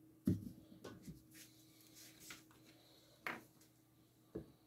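Handling noises as glue bottles are set down and picked up on a plastic-sheeted worktop: a sharp knock about a third of a second in, then a few lighter clicks and short rustles, over a faint steady hum.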